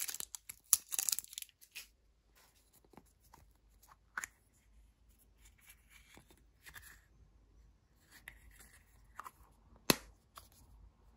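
Plastic crinkling and tearing in the first second or so, then faint scattered clicks and rustles as a small plastic toy capsule is handled and opened, with one sharp plastic click near the end.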